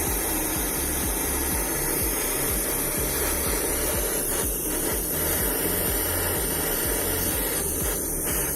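Gas torch burning with a steady hiss, heating a brake tube red-hot.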